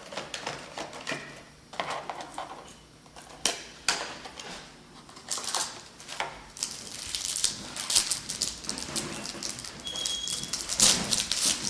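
A trading-card pack being opened and its cards handled: irregular crinkling and rustling of the pack wrapper with the scrape and click of cards sliding, growing denser and more crackly about halfway through.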